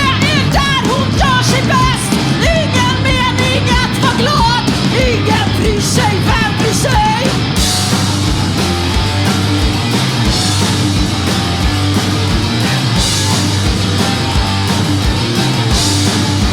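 A punk rock band playing live: distorted guitar, bass and drums, with a high wavering melodic line over the band in the first half. About halfway through the sound thickens into a dense full-band wall of distorted guitar.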